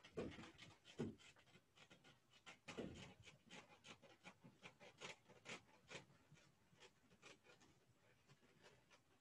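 Blackboard eraser wiping chalk off a blackboard: faint, repeated rubbing strokes, with a few soft knocks near the start and about three seconds in.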